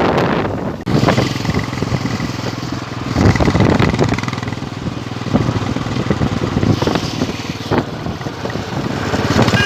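Royal Enfield Bullet motorcycle's single-cylinder engine running through its silencer, a steady rapid exhaust beat. The sound drops out briefly just under a second in, then comes back and swells a little louder a few seconds later.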